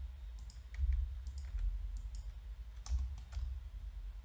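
Computer keyboard keys and mouse clicking in short, irregular taps, about a dozen, over a low steady hum.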